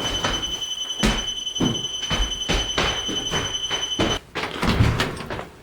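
Non-contact voltage detector sounding a steady high-pitched alert tone, signalling that the wire behind it is live, with crinkling handling noises as tape is stuck over it. The tone cuts off about four seconds in.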